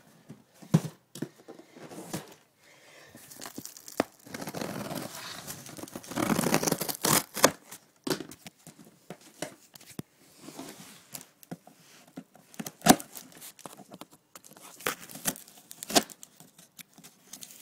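A screwdriver tearing through packing tape and cardboard on a shipping box: stretches of ripping, with sharp clicks and scrapes between them.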